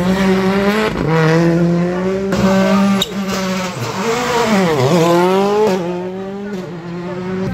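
Rally car engines revving hard at a stage start, held at high revs with a steady pitch that drops sharply and climbs back about halfway through.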